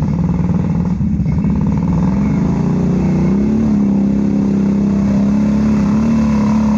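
ATV engine running under throttle, its pitch climbing about two to three seconds in and then holding steady.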